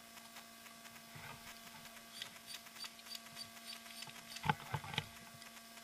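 Footsteps and branches rustling as someone pushes through dry scrub, with scattered small ticks and a few sharper snaps of twigs about four and a half to five seconds in. A faint steady hum runs underneath.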